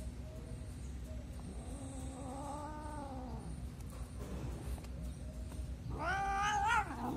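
Domestic cats calling while they wrestle in play: a faint, low, drawn-out meow that rises and falls about two seconds in, then a louder, higher meow lasting about a second near the end.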